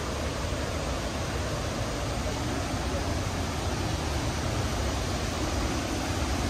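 Steady rushing roar of a waterfall, an unbroken wash of noise with a heavy low rumble.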